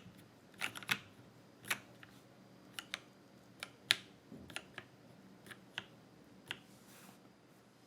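Geonworks Frog TKL mechanical keyboard with lubed Cherry MX Black linear switches on an aluminium plate and PBT keycaps: about a dozen single, irregularly spaced keystroke clacks, thinning out and stopping near the end.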